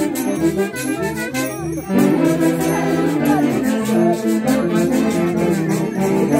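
Live band music with held brass notes and jingling bells over a quick, steady beat.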